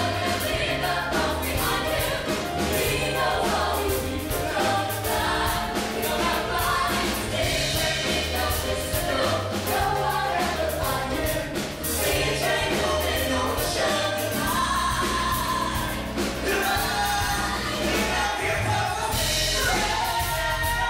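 A male lead and three backing singers singing together into microphones over a live band of piano, electric bass guitar and drums, with a steady bass beat.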